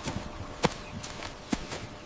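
Three sharp clicks or knocks, spaced irregularly about a second apart, over a faint steady hiss.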